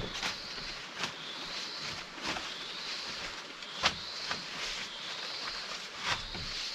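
Sharp knocks from shelter-building work on wood, irregular and about one to two seconds apart, the loudest near four seconds in. A steady high chirring runs underneath.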